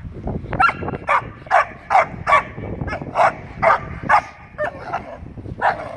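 Young dog barking repeatedly in short, sharp barks, about two a second, with a brief pause near the end.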